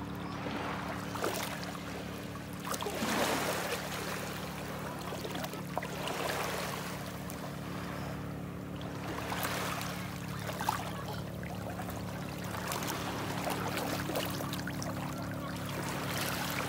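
Small waves washing in over a pebbly shoreline in swells every few seconds, with light splashes from a small child wading. A steady low hum runs underneath.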